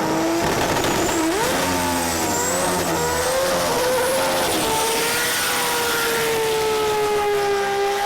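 Holden Commodore drag car's engine running loud at high revs. Its pitch rises sharply about a second in, shifts several times, then glides slowly down over the last few seconds.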